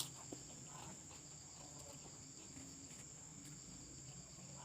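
Crickets trilling steadily in the background as a continuous high-pitched tone, with one sharp click at the very start and a few faint clicks after it.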